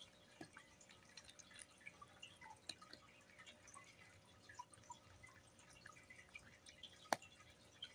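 Cat crunching and chewing dry chicken-and-egg kibble from a bowl: a faint, irregular patter of small crunches and clicks, with one sharper click about seven seconds in.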